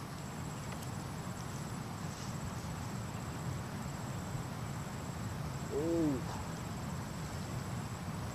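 Insect (cricket-like) trilling as a thin, steady high tone over a low outdoor rumble, with one short rising-and-falling hoot about six seconds in.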